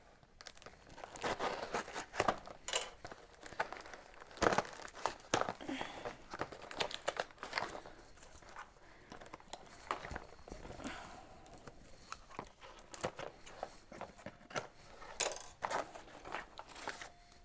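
Packaging being crinkled and torn open by hand: irregular crackling and ripping in uneven bursts.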